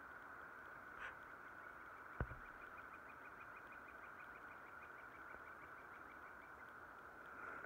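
Quiet outdoor ambience with a steady hiss. A faint, rapid trill of ticks, about six a second, runs for some five seconds, and a single short knock a little after two seconds in is the loudest sound.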